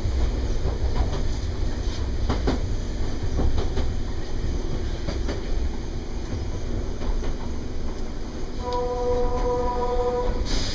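Train running on rails: a steady low rumble with wheel clatter and clicks. Near the end, a steady pitched tone sounds for about two seconds.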